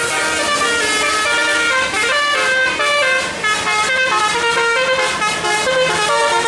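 A bus's 'telolet' musical air horn playing a fast multi-note tune, its notes stepping up and down several times a second.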